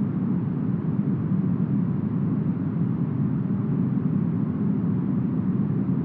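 Smoothed brown noise in the manner of deep forest wind: a steady, deep, muffled rushing with no gusts, swells or breaks.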